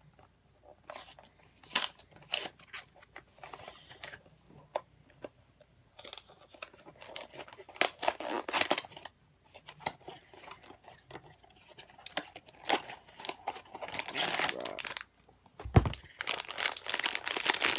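A cardboard blind box being torn open by hand, with the packaging and inner bag handled: irregular tearing, rustling and crinkling with sharp clicks. There is a single low thump near the end.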